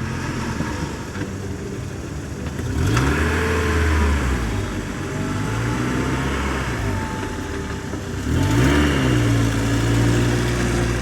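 Car engine running and revving, its pitch climbing and falling back twice: about three seconds in and again just past eight seconds.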